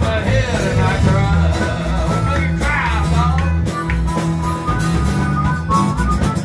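Live band music: an amplified acoustic guitar strummed, with a harmonica playing bending and held notes over it.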